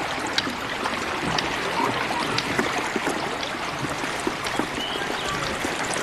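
Running water, a steady rush with scattered small splashes and clicks.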